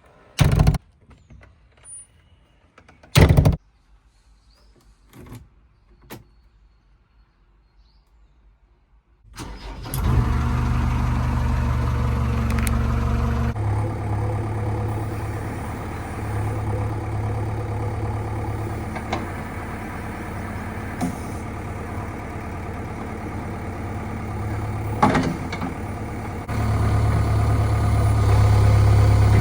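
Two sharp knocks in the first few seconds, then a heavy diesel machine engine is started about nine seconds in and runs steadily, getting louder near the end.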